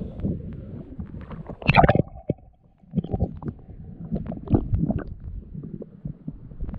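Sea water sloshing against a camera at the surface, then a loud splash just before two seconds in. After that comes muffled underwater rumbling with knocks and surges.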